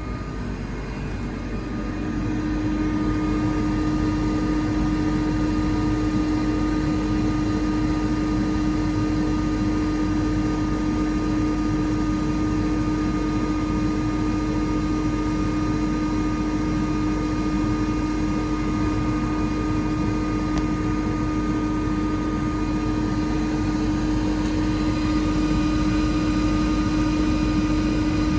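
Atlas Copco GA 7P 7.5 kW oil-injected rotary screw air compressor running loaded and building pressure toward its 9.5 bar cut-out. It gives a steady machine hum with one strong constant tone, and gets slightly louder about two seconds in.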